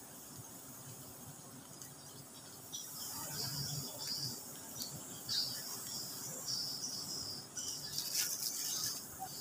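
High-pitched insect trilling, growing louder and pulsing in stretches from about three seconds in. A few brief rustles and crackles near the end.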